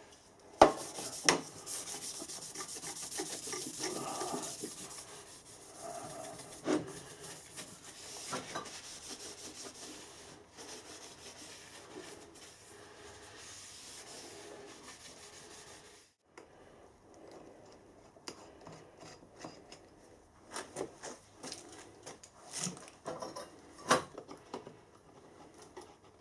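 Scotch-Brite pad rubbing oil over the steel mill table to scrub off surface rust: a steady scrubbing rasp with a couple of sharp knocks near the start. About two thirds of the way in it stops suddenly, and scattered light metal clicks and knocks follow, with one sharp knock near the end.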